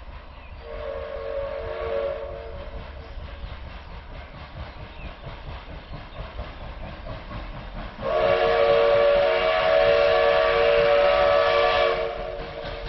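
Whistle of an approaching train, out of sight, sounding a chord of several tones. A blast of about two and a half seconds comes a second in, then a louder, longer blast of about four seconds later on.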